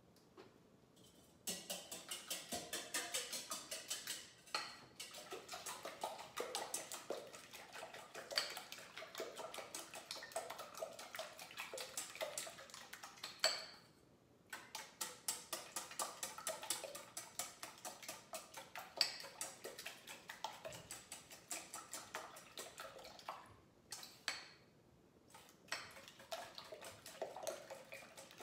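Eggs and milk being beaten in a stainless steel mixing bowl, the utensil clicking against the metal about four times a second. There is a brief pause about halfway through, and the strokes become scattered near the end.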